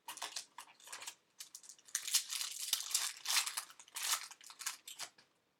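Foil trading-card pack wrapper crinkling and tearing as a pack is ripped open and handled. The crackling is irregular and stops just before the end.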